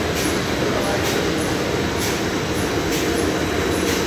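Dewatering screw press for DAF sludge running, its electric gear motors and screw making a steady mechanical hum and rumble, with a faint regular tick a little under once a second.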